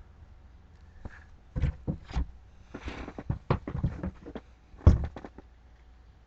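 Firework packages being handled: a string of knocks and clicks with a brief rustle near the middle, the loudest knock a little before five seconds in.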